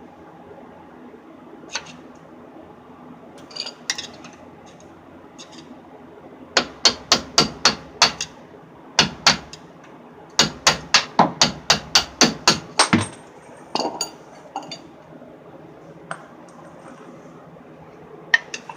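Hammer striking metal: a few scattered clinks, then about halfway through, runs of quick hard blows at about five a second, with a pause between runs.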